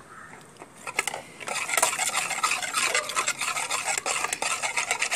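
A whisk beating Caesar dressing in a bowl, with rapid clicking and scraping against the bowl that starts about a second and a half in. Oil is being whisked in to thicken the dressing.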